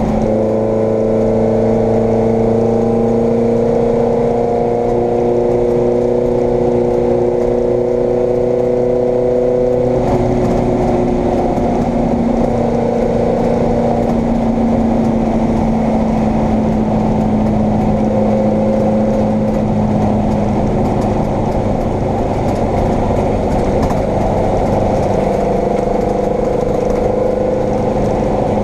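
Vauxhall Firenza race car's engine running hard at high revs, heard from inside the cockpit. Its pitch rises slowly over the first ten seconds, then shifts and carries on steadily under load.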